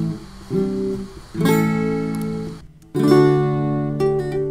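Guitar music: strummed chords ringing out, with a short break a little before three seconds in, then a new chord struck loudly.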